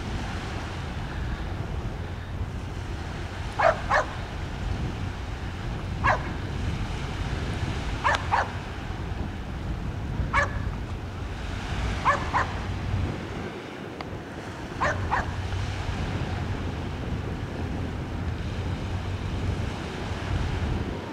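A dog barking, mostly in quick pairs, about ten barks spread over the middle of the stretch, over a steady low rumble of wind on the microphone.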